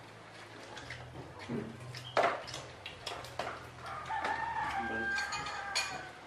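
A rooster crows once in the background, starting about four seconds in and lasting under two seconds. Short clinks and knocks of plates and dishes being handled at a meal table are heard around it, with a sharper knock about two seconds in.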